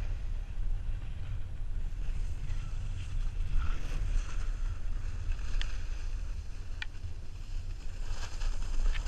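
Wind buffeting a pole-mounted action camera's microphone in a steady low rumble, over the hiss of a snowboard sliding on packed snow, with a couple of brief sharp ticks about halfway through.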